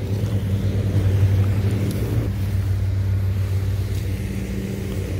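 A steady low mechanical hum of a running motor or engine, holding one pitch, with a rumble beneath it.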